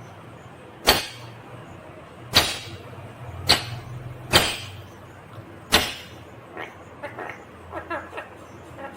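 Indian ringneck parakeet giving five short, harsh shrieks about a second apart, then softer, quicker chattering notes in the last few seconds.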